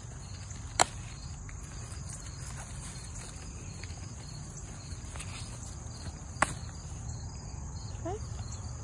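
Steady high-pitched chorus of insects in a summer garden. Two sharp clicks cut through it, about a second in and again about six and a half seconds in, as peppers are picked.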